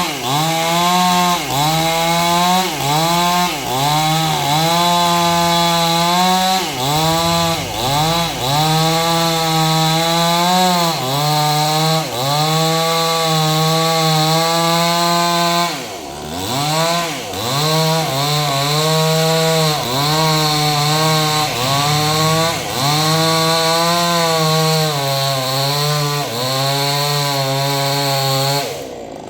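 Two-stroke chainsaw cutting through an acacia tree at high revs, its pitch sagging and recovering about once a second as the chain bites into the wood. The revs drop briefly about halfway through and again near the end.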